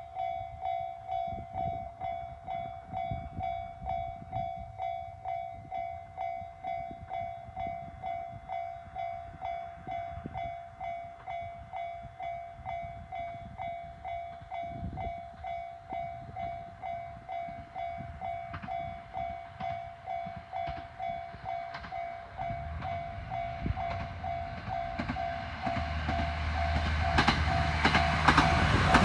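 Japanese railway level-crossing alarm ringing, a steady pitched ding repeated about twice a second. A train approaches from about two-thirds of the way through, its rumble and wheel clatter growing loud near the end.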